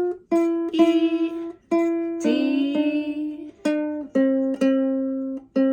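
Ukulele picking single notes down the scale F, E, D, C in a short-short-long "ice cream cone" rhythm, each note ringing and fading. A voice sings the note names over it.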